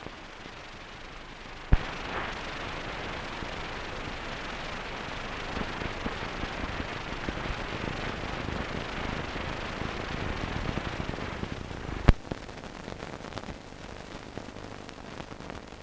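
Steady hiss and crackle of an old newsreel film soundtrack, with a sharp click about two seconds in and another about twelve seconds in; the hiss is louder between the two clicks.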